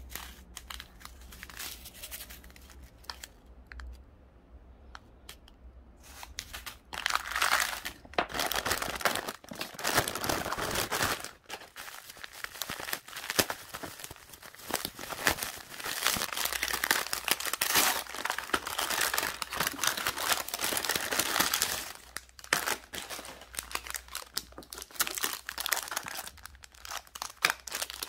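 Plastic packaging and bubble wrap crinkling as they are handled and unwrapped. It starts as a few sparse small clicks, turns into dense crinkling about seven seconds in, and breaks into looser, intermittent crackles for the last several seconds.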